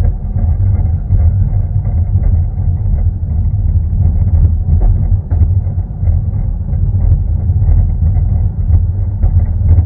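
Steady low rumble of a 750 mm narrow-gauge railway carriage rolling slowly along the track, heard from on board, with faint scattered clicks.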